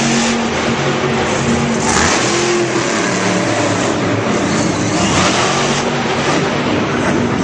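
Monster truck engines running loud and revving in an arena, the engine pitch holding and then shifting in steps.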